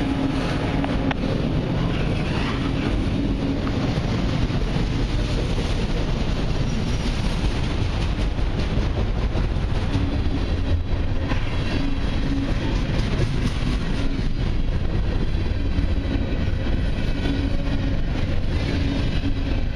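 A long freight train's cars rolling past at close range, autoracks giving way to covered hoppers, with a steady rumble and rattle of steel wheels on the rails.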